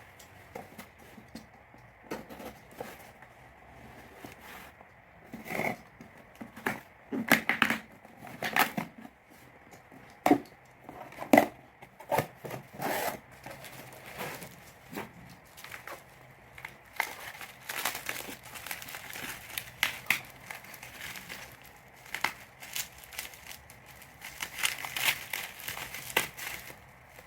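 Parcel packaging being unwrapped by hand: irregular crinkling, crackling and tearing of wrapping. The loudest crackles come in a cluster about a third of the way in.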